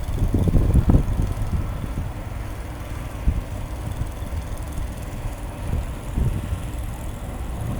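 Wind buffeting the microphone in uneven low gusts, strongest in the first second, over the rumble of traffic on a snowy street.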